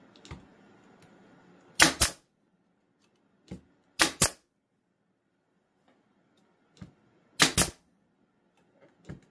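Bostitch pneumatic nail gun firing nails through a wooden board: three sharp double cracks a few seconds apart, with lighter knocks as the gun is set against the wood between shots.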